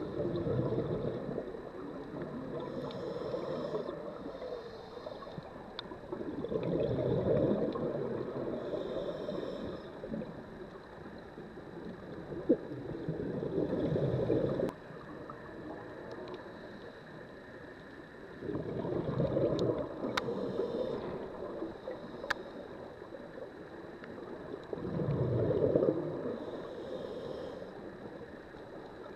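Scuba regulator breathing heard underwater: five bubbling gurgles of exhaled air, about six seconds apart, with softer hissing inhalations between them.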